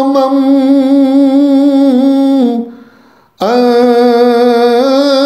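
A man's voice chanting the Persian devotional verse unaccompanied, drawing out the word 'ghulamam' in a long held note with a slight waver. It breaks off briefly about two and a half seconds in, and a new long held note begins about a second later.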